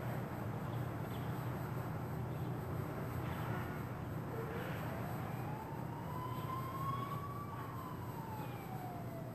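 Emergency vehicle siren wailing in the distance: one slow wail that starts a little before halfway, rises, then falls away near the end, over a steady low hum of city traffic.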